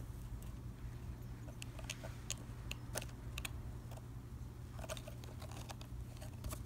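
A parrot chewing and picking at a small cardboard gift box with its beak: scattered, irregular small clicks and crunches.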